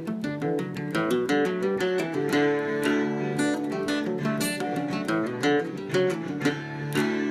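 Music: a strummed and picked acoustic guitar playing a quick, steady rhythm of chords and notes.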